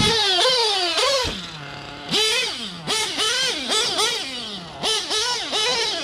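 Novarossi .25 nitro engine in a 1/8-scale RC truggy revving in repeated throttle blips, its high pitch rising and falling about twice a second after a long fall in the first second. Two low thumps come in the first second and a half.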